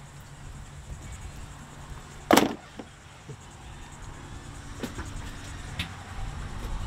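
Fish being handled on a fiberglass boat: one loud thump about two seconds in, then a few lighter knocks and taps, over a low steady hum.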